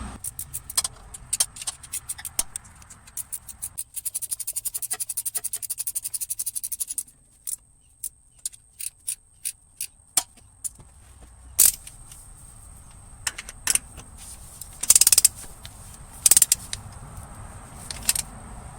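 Hand ratchet clicking in a fast run for about three seconds, among scattered metal clicks and clinks of tools and bolts, as the mounting bolts of a new A/C compressor are run in and tightened.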